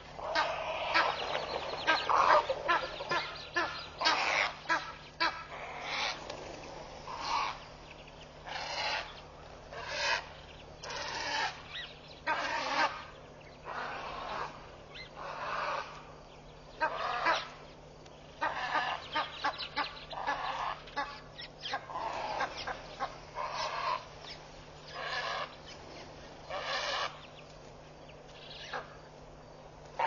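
Egyptian geese honking in repeated harsh calls, packed closely in the first few seconds and then coming in spaced bursts with pauses between them. A faint steady low hum runs underneath.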